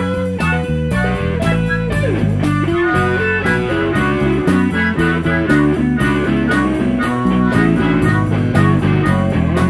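Live blues band: harmonica and electric guitar playing over bass and drums, with a steady beat and bent, sliding notes.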